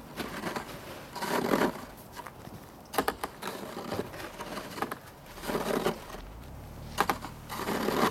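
Plastic snow shovel scooping and pushing through deep snow on a roof, crunching and scraping in three bursts, with a couple of sharp knocks in between.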